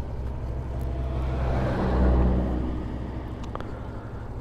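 A motor vehicle passing by: its engine hum swells to a peak about two seconds in, then fades away.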